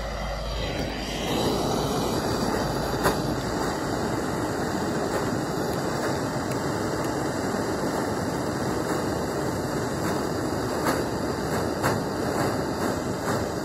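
Handheld propane torch burning with a steady hiss, heating the pressed-on pinion gear of an RS550 motor to loosen it from the shaft; the hiss starts about a second in. A few light clicks come near the end.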